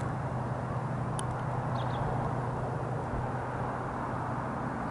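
Steady low hum under an even background hiss, with one faint click about a second in and two short high chirps around two seconds in.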